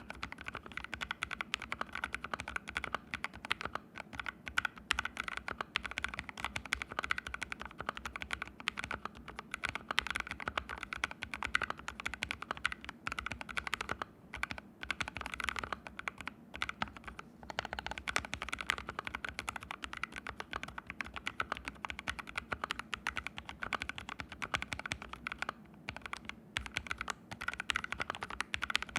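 Mechanical keyboard with fully lubed Haimu Sea Salt switches being typed on steadily and quickly, a dense run of key clacks with a few short pauses. The keyboard sits on a bare floor with no desk mat under it.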